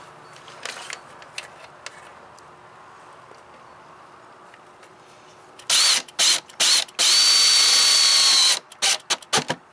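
20V cordless drill/driver sinking a self-tapping screw through the aluminium frame of a solar panel and its mounting bracket: after a few seconds of faint handling clicks, a few short trigger bursts of high motor whine, then one steady run of about a second and a half, then a couple of brief bursts near the end.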